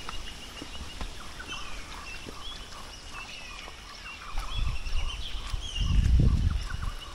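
Rainforest birds chirping and calling over a steady, high, pulsing insect trill. A low rumble comes twice near the end and is the loudest sound.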